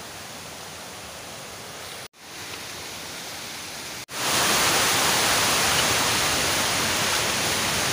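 Steady rush of water falling at a small waterfall. It breaks off abruptly twice, about two and four seconds in, and after the second break it is much louder, as if much closer to the falling water.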